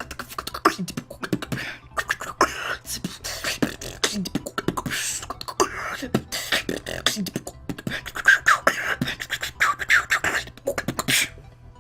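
Human beatboxing: a fast, dense run of vocal kick drums, clicks and hissing snare sounds with short hummed tones in between. It stops abruptly near the end.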